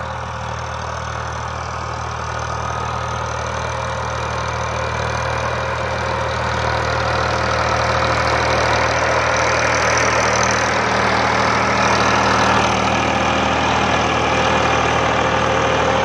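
Indo Farm 3048 DI tractor's diesel engine running steadily under load while pulling a field implement, growing louder as it comes closer. It moves slowly, which the mechanic takes as a sign that the tractor cannot pull the implement.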